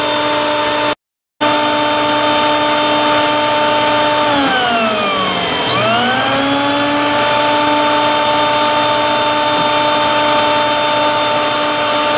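Electric fan motor whining steadily in a steady pitch. It cuts out for a split second about a second in, and midway the pitch sags to about half, then climbs back up over a few seconds.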